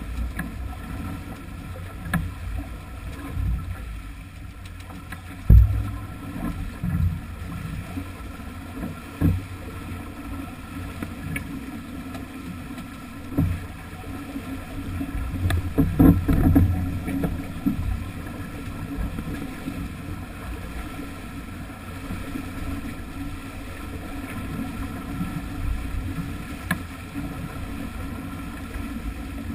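A sailing yacht heeled over and driving through choppy water: a steady rush of water along the hull and wind on the microphone, with several louder low gusts of buffeting, the strongest about halfway through.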